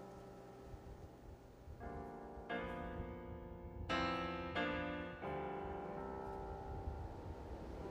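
Background piano music: slow chords struck one after another, each left to ring and fade.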